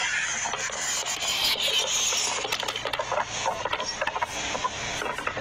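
Fireworks crackling: a dense, rapid run of small pops and crackles with no big booms.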